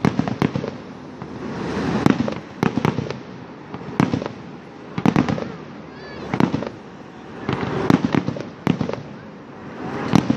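Aerial fireworks shells bursting in a series of sharp bangs, about one a second, with a rolling rumble between them.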